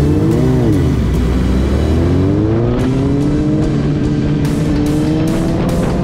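Suzuki GSX-R1000 K8 inline-four through a decatted Cobra twin exhaust: a quick rev blip in the first second, then the engine pulling away under throttle with its pitch rising steadily. Music plays underneath.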